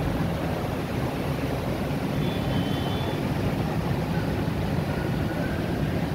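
Steady low engine rumble of a ferry at the pier, with a faint short high whistle about two seconds in and another a couple of seconds later.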